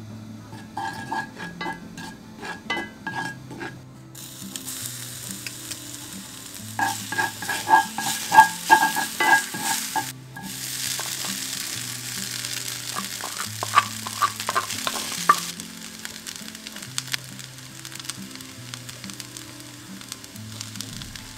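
Cumin seeds sizzling in hot oil in a cast iron skillet, with stirring. The sizzle starts about four seconds in, breaks off for a moment near ten seconds and dies down after about fifteen seconds. Soft background music plays under it throughout.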